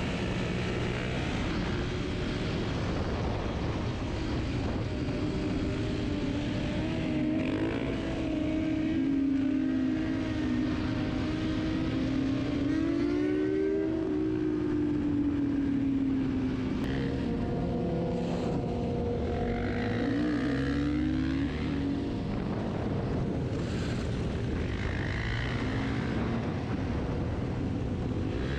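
Motorcycle engines running on the move, their pitch rising and falling as they rev, with more than one bike heard at once at times.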